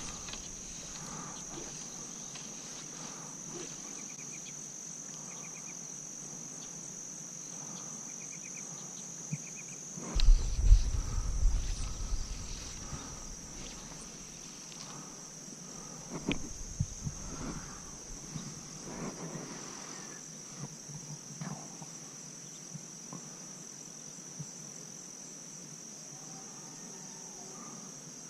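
A steady, high-pitched chorus of crickets, with a few short chirping trills in the first few seconds. About ten seconds in, a few seconds of low rumbling and knocks are the loudest sound, and a few softer knocks follow later.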